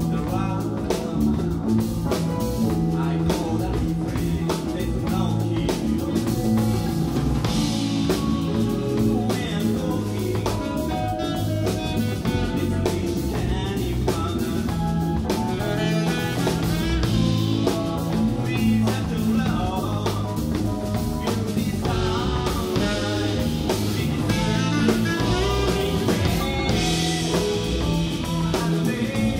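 Live band playing a slow blues-soul tune, with a saxophone taking the lead over drum kit, bass and keyboards.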